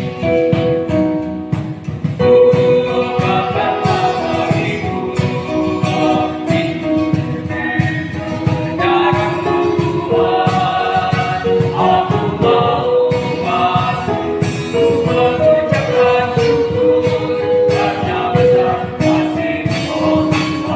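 Mixed youth church choir, male and female voices, singing a song in several parts, over keyboard accompaniment and a steady beat.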